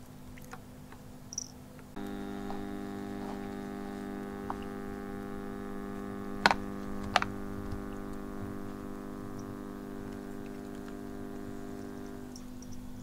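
Steady electrical hum that turns fuller about two seconds in and drops back near the end, with two sharp clicks close together in the middle.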